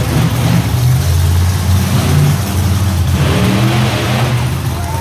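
Monster truck engine running hard, its pitch rising a little over three seconds in as it revs.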